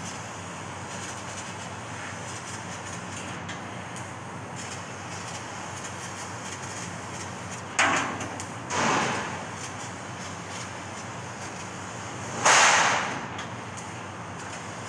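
CNC laser cutting machine cutting a decorative pattern in steel sheet: a steady machine hiss and hum, broken by three short whooshing bursts about eight, nine and twelve and a half seconds in, the last the loudest.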